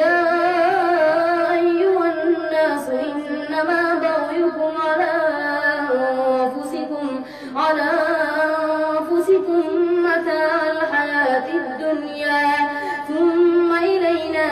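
A boy's voice reciting the Quran aloud in melodic tajweed, holding long drawn-out tones, with a short breath about seven and a half seconds in.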